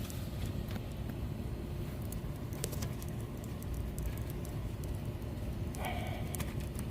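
Faint scattered clicks and taps of hand tools and metal parts while a brake caliper is being unbolted and worked loose, over a steady low rumble, with a short higher scrape-like sound about six seconds in.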